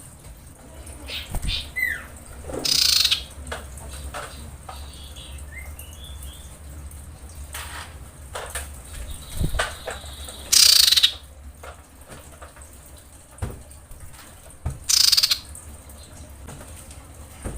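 Female common iora calling: three loud harsh rasping calls, about three, ten and fifteen seconds in, with a few soft short chirps between. This is the call of a female in breeding condition calling to males.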